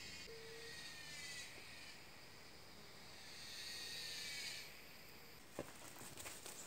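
Faint, high insect chirring that swells about four seconds in and then drops away. Near the end there is a snap, then footsteps crunching on dry leaf litter.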